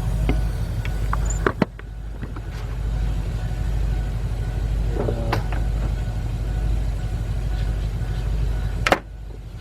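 A steady low rumble that drops away briefly twice, with a few sharp clicks and a short metallic clink of parts being handled.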